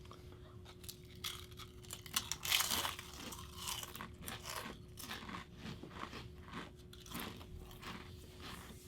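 Ridged Ruffles potato chips being bitten and chewed: a loud crunch about two and a half seconds in, followed by many irregular crisp crunches of chewing.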